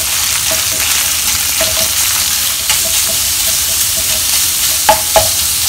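Minced pork and chopped garlic sizzling steadily in hot oil in a wok, stirred and broken up with a wooden spatula that scrapes across the pan, with two sharper knocks about five seconds in.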